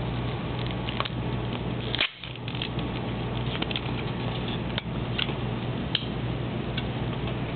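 Retail box of an iPod touch being handled and opened, with scattered light clicks and rustles over a steady low hum.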